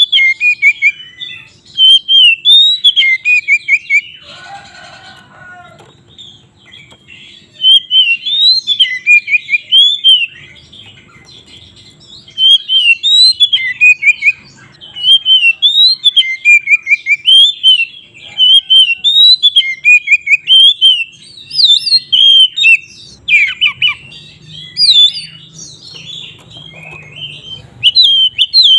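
Oriental magpie-robin (kacer) singing loud, rapid whistled phrases in bursts, broken by short pauses, with a harsh rasping note about four seconds in.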